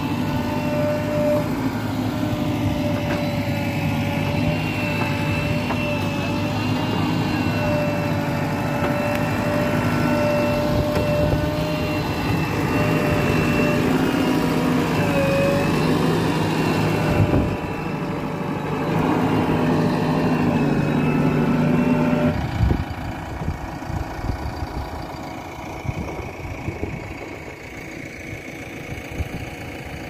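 A JCB 3DX backhoe loader's diesel engine runs steadily with a high whine over it while the machine works. About two-thirds through, the steady pitch stops and the sound drops to a quieter, rougher noise.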